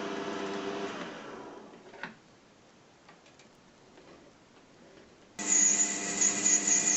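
A machine's steady hum winds down and stops in the first two seconds, followed by a single click and a few faint ticks. About five seconds in, a high-pitched power tool starts abruptly, its whine rising and falling as it works.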